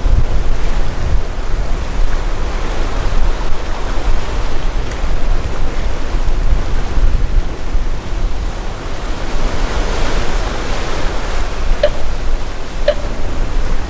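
Sea surf washing steadily over a rocky shore, with wind rumbling on the microphone.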